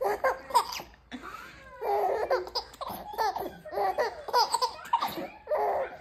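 Young infant laughing in a string of short, pitched bursts of giggles, about one every second.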